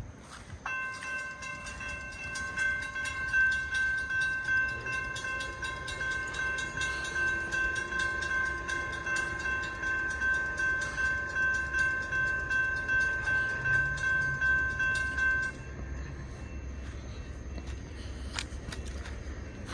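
Railroad grade-crossing warning bell ringing in a steady, even rhythm as the crossing signals activate, warning of an approaching train; it stops abruptly about three-quarters of the way through.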